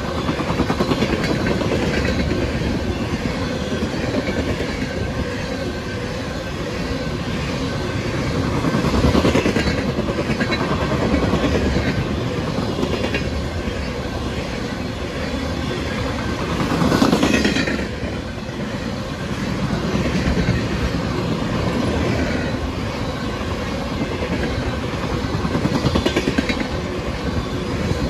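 Tank cars of an ethanol train rolling past, a steady rumble and clatter of wheels on the rails, swelling louder twice, most strongly about two thirds of the way through.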